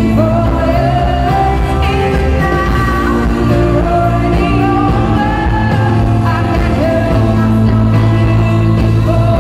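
Live pop ballad played loud in an arena: a woman's solo lead vocal sings a bending melody over the full backing band and a steady bass. It is heard from the audience seats, with the hall's echo.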